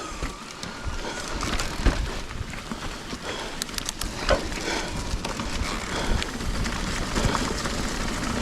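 Trek Rail 9.7 mountain bike being ridden along a dirt trail: tyres rolling over dirt and rocks with a steady rush, broken by frequent knocks and rattles from the bike over bumps.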